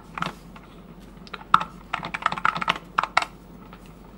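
Keys being typed on an Apple II computer keyboard: a few keystrokes in the first half-second, then a longer run of clacking keys through the middle.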